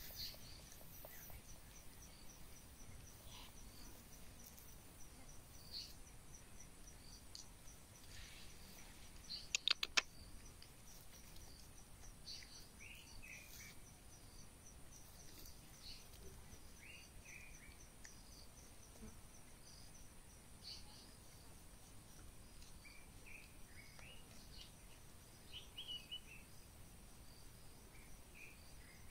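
Faint outdoor ambience: insects trilling steadily and high, with scattered short chirps. A quick run of clicks about ten seconds in.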